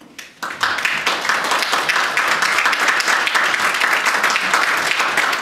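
Audience applauding, starting about half a second in and quickly building to full, steady clapping.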